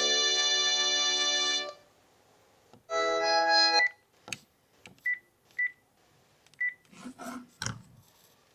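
Panasonic cordless phone playing a polyphonic electronic melody ringtone that stops about a second and a half in. A second, shorter tune plays about three seconds in, followed by a few short high beeps and scattered clicks.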